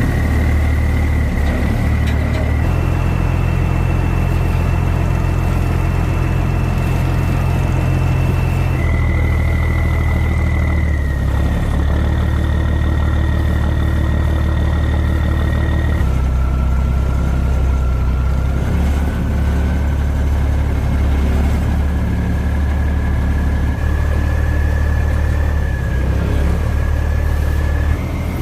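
Boat engine running steadily, with a thin high whine above its low drone; the pitch of both jumps abruptly a few times.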